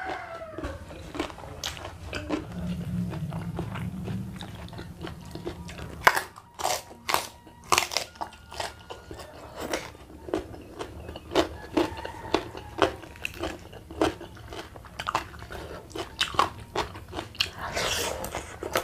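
Close-up chewing and biting of crunchy raw vegetables, with sharp crisp crunches coming thick and fast from about a third of the way in.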